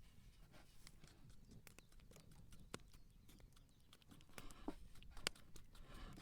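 Faint, scattered light taps and clicks over a low steady wind rumble, with soft rustling in between; the sharpest tap comes about five seconds in.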